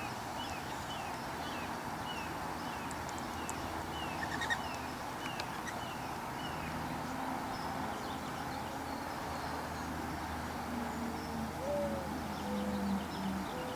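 A small bird calling a short, high, downward-slurred note over and over, about twice a second, stopping about halfway through, over steady outdoor background hiss.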